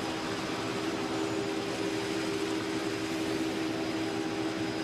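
Steady drone of idling engines: a continuous hum holding a couple of steady low tones over an even hiss.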